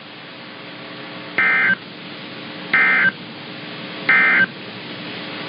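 Emergency Alert System end-of-message signal: three short bursts of digital data tones, evenly spaced a little over a second apart, marking the end of the tornado warning broadcast. A steady hiss runs underneath.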